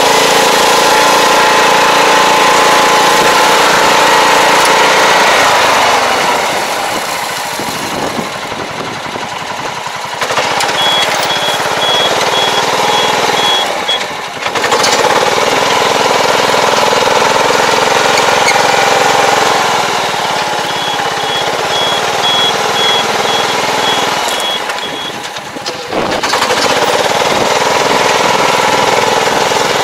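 Tractor engine running steadily while it pulls a fertilizer applicator through a tilled field. The engine note drops and softens twice, about six seconds in and again around twenty seconds in, then picks back up.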